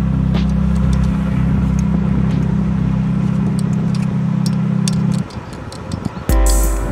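Narrow-gauge diesel locomotive idling with a steady low drone and light ticks, which cuts off abruptly about five seconds in; music comes in near the end.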